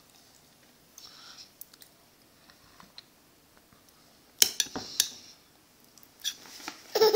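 Metal spoon clinking against a dish during spoon-feeding. There are a few faint ticks, then several sharp clinks about four and a half seconds in and more near the end. A short falling voice is heard right at the end.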